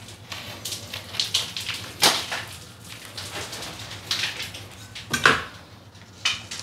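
Utility knife and metal scraper cutting and scraping at loose paper joint tape on a plasterboard ceiling, in short scratchy strokes, with the tape tearing as a strip is pulled away near the end. The tape has come away from the board.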